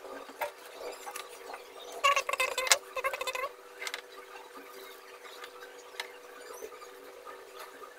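Handling noise from a plastic LED bulb housing and a soldering iron being picked up and moved about: scratchy rustling and small clicks, busiest from about two to three and a half seconds in. A steady low hum sits underneath.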